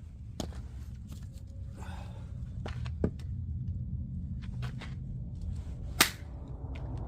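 Oak firewood cracking and snapping as it is broken apart: three sharp cracks about three seconds apart, the last the loudest, with lighter ticks of wood between them.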